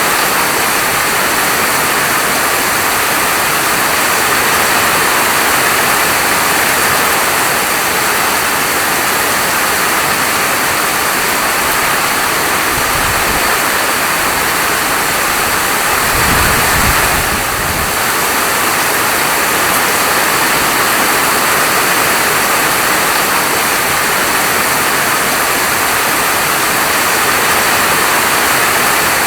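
Steady rain falling, a dense even hiss, with a brief low rumble a little past halfway.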